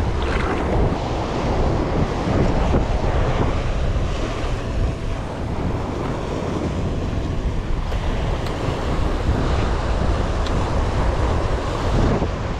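Surf breaking and washing up over the sand at the water's edge, with wind buffeting the microphone.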